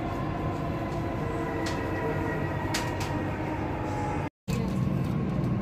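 Dubai Metro train running, heard from inside the carriage: a steady rumble and hiss with a faint hum and a few light clicks. About four seconds in, the sound cuts out for a moment and a lower, steadier hum takes over.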